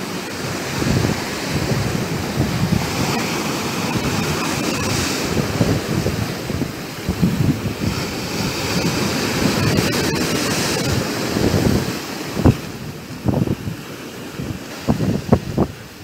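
Rough sea surf breaking and washing over a stony beach and around boulders, a continuous hiss of foam that swells around 5 and 10 seconds in. Wind buffets the microphone in gusts in the last few seconds.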